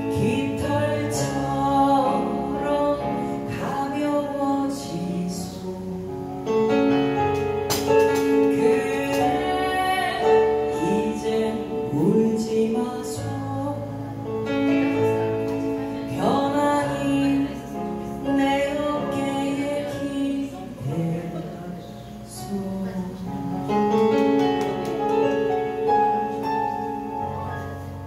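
A woman singing a song into a microphone with long held notes, accompanying herself with chords on a Yamaha electric keyboard.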